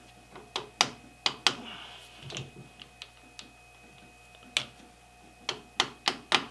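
Sharp taps, about ten in irregular pairs and clusters, of a small knocker hammer on a metal lathe's quick-change tool post, nudging the post square against a dial indicator.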